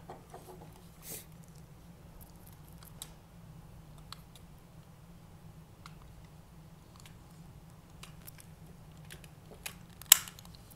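Sparse small clicks and taps from the parts of a Dragonzord toy robot being opened and moved by hand, with a louder click near the end.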